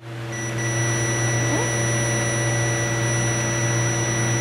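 Fluke 88V multimeter's continuity beeper sounding a steady high-pitched tone once the leads make contact across a jumper wire: continuity, with the meter reading 0.3 ohm. A loud steady low hum and hiss sound along with it.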